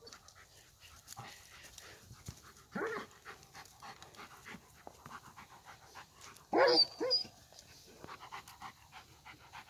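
A dog panting in quick breaths while it noses and paws a bowling ball across grass. Two short, louder cries break in, about three seconds in and again around seven seconds.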